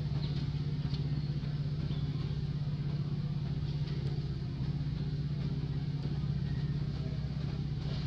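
A motor running steadily at idle: an even low hum with faint light ticks above it.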